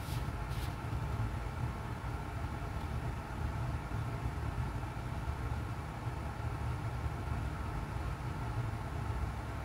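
Steady low background rumble, with two brief clicks about half a second apart right at the start.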